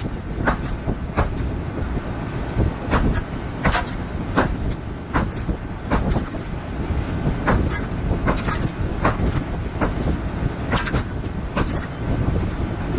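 Small sledgehammer striking concrete block and mortar in a wall, irregular sharp blows about once a second over a steady low rumble.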